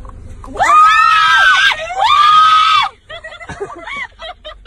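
A person screaming: two long, high-pitched screams back to back, then short broken cries and yelps.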